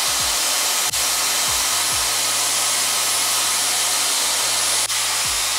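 Dyson Airwrap multi-styler running with its round brush attachment, a steady rush of blown air as it is worked through the hair.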